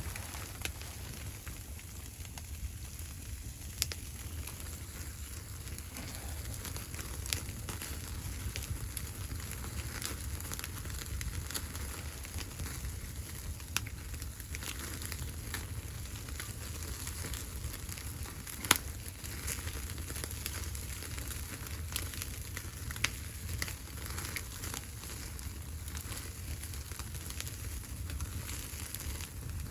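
Wood fire crackling, with scattered sharp pops every few seconds over a steady low rumble.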